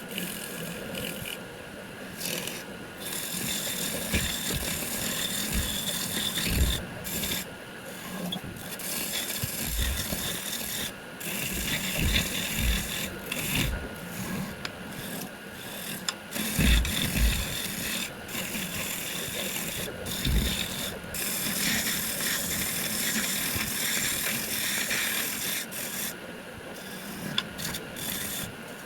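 Hand-held turning tool scraping and cutting wood as it spins on a wood lathe, in long passes broken by short pauses, with a few low knocks.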